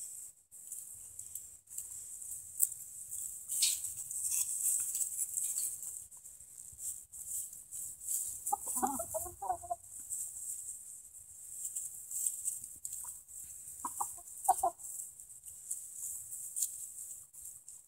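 Chickens clucking: a quick run of clucks about halfway through, then two short clucks a few seconds later.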